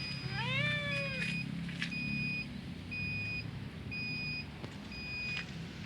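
A vehicle's reversing beeper sounding a half-second beep about once a second over a low engine rumble. A cat gives one meow, rising then levelling off, about half a second in.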